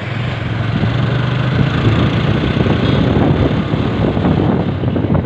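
Motorcycle engine running at a steady cruise, heard from the rider's seat as a constant low drone under rushing wind noise.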